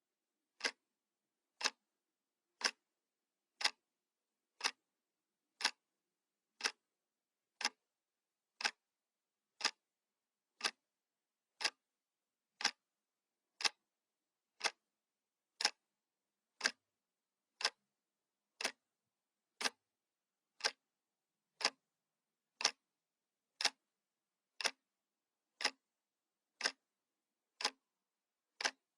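Analog wall clock ticking steadily, one sharp tick each second with silence between.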